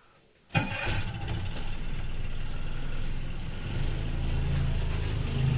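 Mariner 25 four-stroke outboard engine started with the ignition key: it fires and catches about half a second in, then runs steadily at idle, getting a little louder toward the end.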